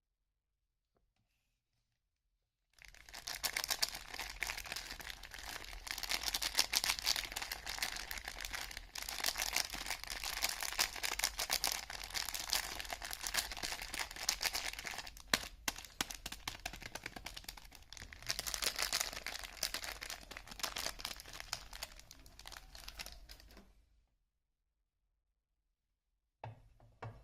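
Soap wrapper being peeled and torn open, a dense crinkling, crackling rustle full of small clicks. It starts about three seconds in and stops a few seconds before the end, with one brief faint rustle just after.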